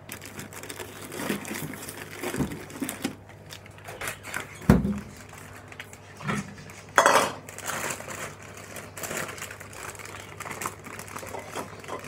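Kitchen handling noises: a plastic flour bag rustling and a small metal bowl clattering on a stone countertop, with a run of knocks. The loudest are a heavy thump about five seconds in and a short sharp rustle about two seconds later.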